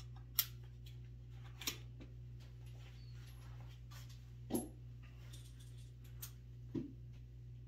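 A few scattered light clicks and knocks, about four in all, from someone handling things and moving about a workshop, over a steady low hum.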